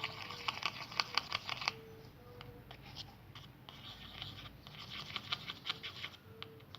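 Scratching and clicking from a paintbrush stirring a soap-based slime mixture in a container, in two busy spells with sparser strokes between.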